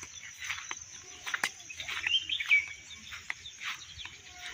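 Rural dusk ambience: insects trill steadily and high, with bird calls over them. A short warbling bird call about two seconds in is the loudest sound. Scattered short rustles and crackles of footsteps go through dry grass and brush.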